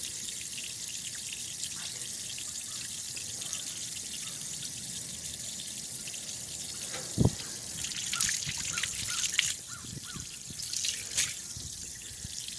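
Water from a garden-hose flush running out of a car's disconnected lower radiator hose and trickling and dripping onto the ground: the slant-six engine's water jacket being flushed of old coolant. A single knock about seven seconds in.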